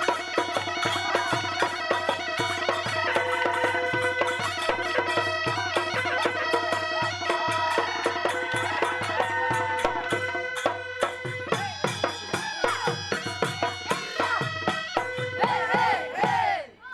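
Instrumental Assamese folk music: a steady drumbeat under held melody tones. The percussion thins out about ten seconds in and returns.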